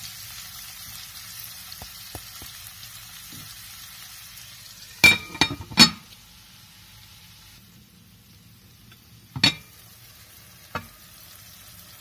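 Onions and tomatoes sizzling gently in oil in a frying pan while a spatula stirs them. About five seconds in, a glass lid clinks sharply onto the pan three times and the sizzle turns quieter under it. Two more glass-on-metal clinks come near the end as the lid is handled again.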